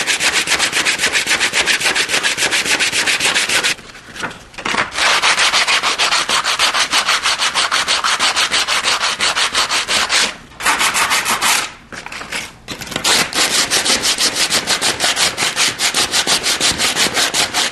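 Sandpaper rubbed by hand in fast, even back-and-forth strokes over painted window trim, smoothing the spots where chipped paint was scraped off. The rasping runs at several strokes a second, with a few brief pauses.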